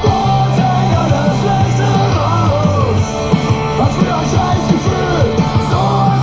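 Rock music with a singing voice over sustained bass notes and a steady beat.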